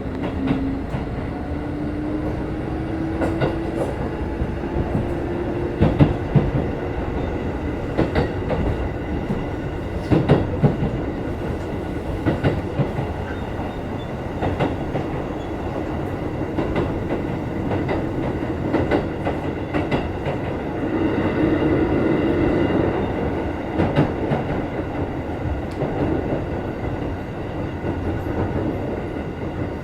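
Running noise inside a Keikyu 1500 series field-chopper-controlled electric car at speed. The traction motor whine rises in pitch during the first few seconds, and the wheels clack over rail joints again and again.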